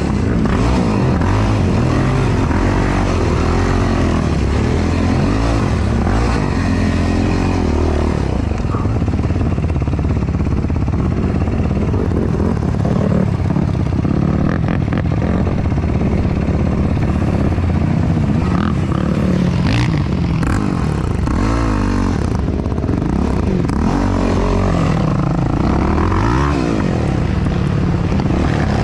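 Yamaha YFZ450R quad's single-cylinder four-stroke engine revving up and down as the throttle is worked, heard close from the onboard camera, with a few knocks and clatters about halfway through.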